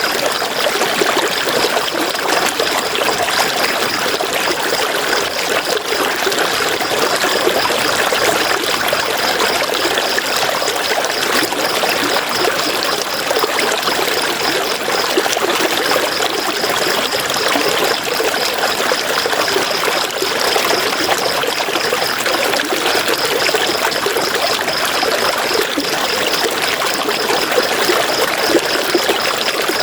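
River water running in a steady, even rush. Above it, a high, rapidly pulsing trill carries on, with short pauses about halfway through and again a little later.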